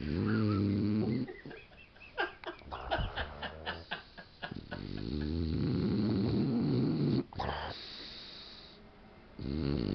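Mini Boxer snoring in her sleep. A loud snore is followed by a run of short snuffles, then a long snore, and another snore starts near the end.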